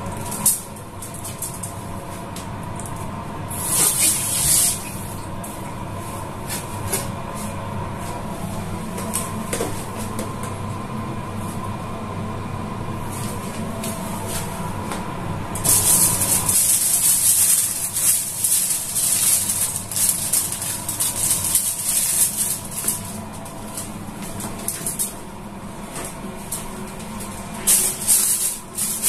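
A steady low hum with a faint tone that stops about 16 seconds in, a brief hiss about 4 seconds in, then from about 16 seconds on a loud crackling hiss of food sizzling in hot oil.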